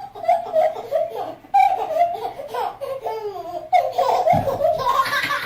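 A small child laughing in repeated bursts of giggles.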